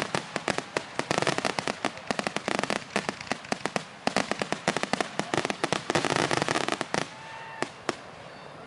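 Fireworks going off in a dense, rapid string of cracks and bangs that thins to a few scattered reports about seven seconds in.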